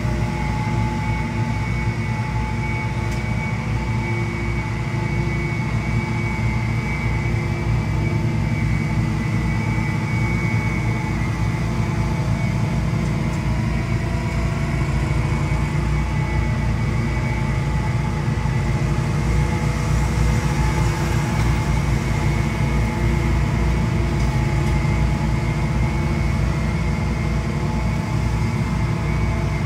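Gas leaf blowers, among them a red walk-behind wheeled blower, running steadily: a constant engine drone with a steady high whine over it.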